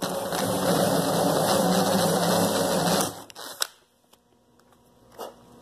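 Drill spinning an annular cutter (Rotabroach) with a spring-loaded pilot pin, cutting through the skin of an aircraft interior honeycomb panel and partway into its core. The steady motor and cutting noise runs about three seconds and then stops, followed by a light click or two.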